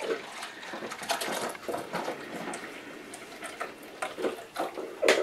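Buttermilk pouring in a thin stream off fresh-churned butter into a ceramic bowl, splashing steadily, with a few light knocks of the container and a sharper one near the end.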